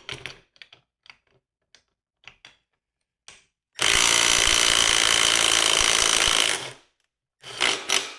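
Milwaukee M12 brushed impact driver hammering for about three seconds, trying to break a torqued bolt loose in a breakaway torque test. Light clicks and clinks of handling come before and after it.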